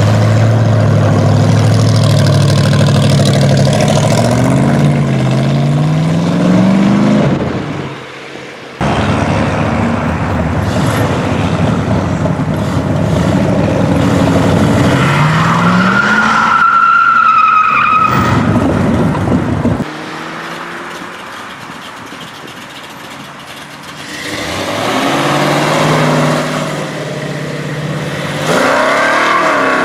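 Loud car engines revving and accelerating away, in several short clips cut together: first a supercharged rat-rod engine pulls up in pitch several times in a row, then other cars rev and pull off, with a quieter stretch of passing traffic about two-thirds of the way through.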